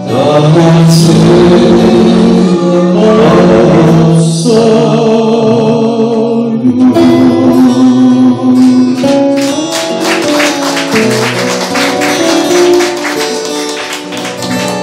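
Several men singing together over acoustic guitars, holding long notes. In the second half the voices drop back and strummed acoustic guitar comes forward.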